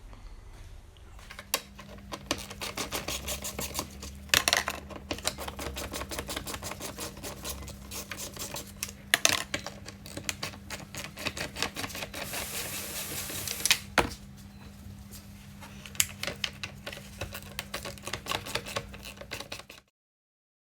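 Fast, irregular clicking and tapping over a steady low hum, with a few louder knocks, typical of hand work on plastic parts. It cuts off suddenly just before the end.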